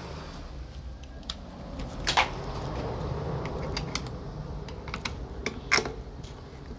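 Scattered light clicks and ticks of a hand screwdriver working the screws out of a Bosch drill's plastic housing, with two louder clicks about two seconds in and near six seconds.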